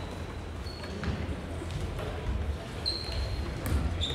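Floorball play in an echoing sports hall: about three short, high squeaks of indoor shoes on the hall floor, several sharp clicks of plastic sticks and ball, and a low rumble of players' movement.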